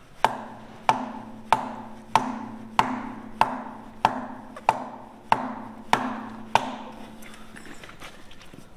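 Sledgehammer striking a block of wood held against the steel steering-brake drum of a Centurion tank gearbox: eleven even blows, a little over one and a half a second, each with a short metallic ring from the drum, stopping about seven seconds in. The drum is being knocked around its outside to centralise the brake band so its adjuster can take up more clicks.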